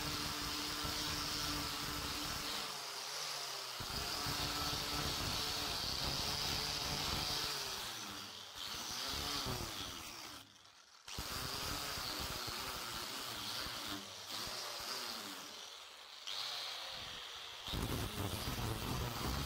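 Angle grinder with a sanding disc running against a wooden sword grip, sanding it down. The motor drone wavers in pitch a few times as the disc is worked over the wood, and it cuts out briefly about halfway through.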